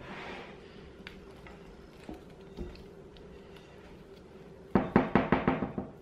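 A glass mixing bowl knocking against a wooden table as sourdough dough is stretched and folded in it. Faint small knocks come first, then near the end a quick run of about eight loud knocks over about a second, fading as it goes.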